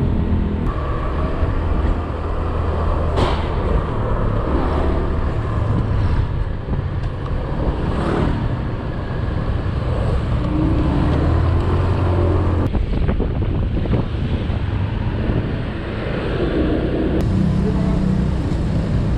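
A road vehicle on the move: a steady low engine rumble mixed with road and wind noise, with a few faint knocks.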